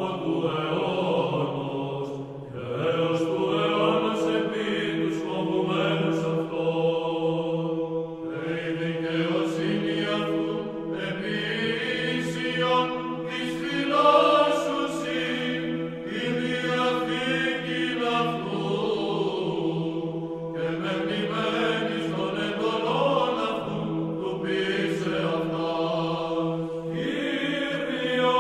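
Chanted vocal music: voices singing a slow melody over a steady held drone note.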